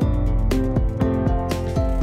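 Background music with a steady beat, pitched notes over a low bass line.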